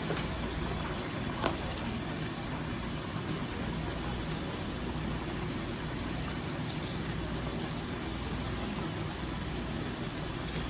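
Steady roar of a commercial kitchen's gas range burners, with one light clink about a second and a half in.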